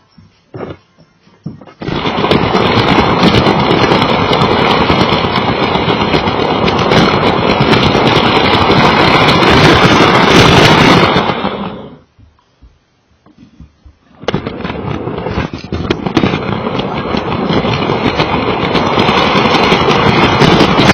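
Lego toy train running with a camera riding on it, its motor and wheels making a loud rattling clatter over the track. The clatter starts about two seconds in, stops around twelve seconds, and starts again about two seconds later.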